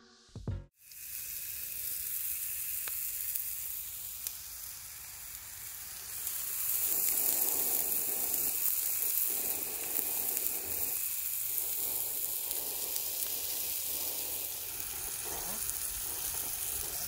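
A minced-meat patty sizzling in a frying pan, the sizzle getting louder about six seconds in.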